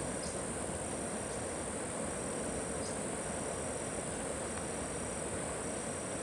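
Steady noisy ambience: a continuous high hiss over a low rushing noise, with a faint high tone repeating in short dashes a little less than once a second.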